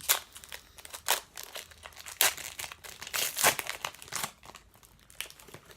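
Wrapper of a hockey trading-card pack being torn open and crinkled by hand: irregular crackling and rustling that thins out near the end.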